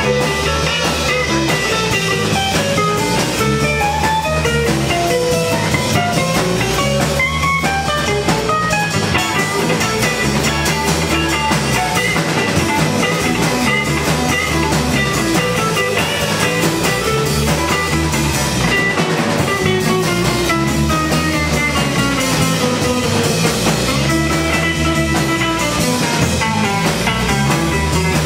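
Live rock band playing: electric guitar lines over electric bass and a drum kit, with a low figure repeating about every two seconds.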